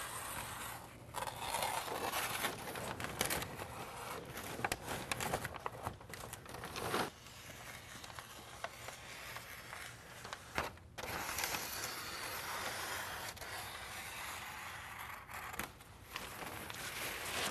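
Scissors snipping through a sheet of Tyvek DrainWrap housewrap, the sheet rustling and crinkling as it is cut and handled, with a few sharper snaps.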